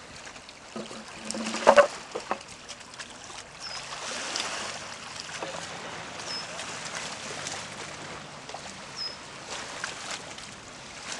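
Outdoor riverbank ambience: a steady wash of background noise with a bird's short high chirp repeating about every two and a half seconds, and one brief loud sound near two seconds in.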